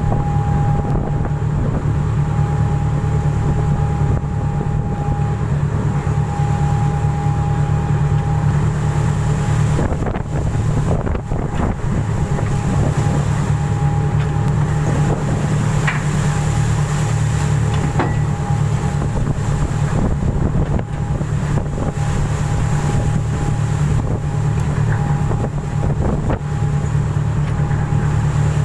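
A ship's engine running steadily: a constant low hum with a thin steady whine above it, and wind rushing over the microphone.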